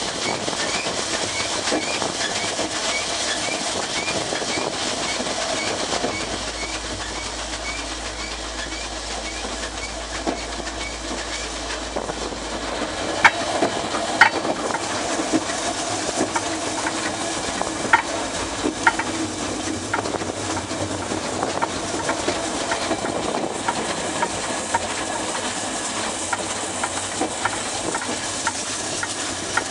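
Peckett No.1438 steam locomotive running with its brake van: a steady hiss of steam, with the wheels clicking and clanking over the rail joints, the knocks sharper and more frequent from about halfway through.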